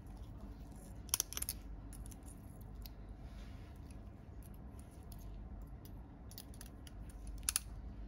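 Faint clicks of steel surgical instruments, a needle holder and tissue forceps handled during suturing: a short cluster about a second in and two quick clicks near the end, over a low steady hum.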